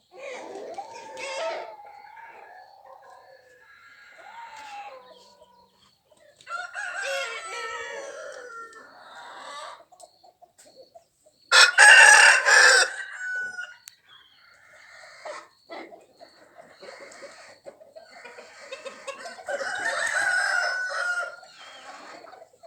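Desi chickens clucking in bouts, with a rooster crowing loudly once about halfway through.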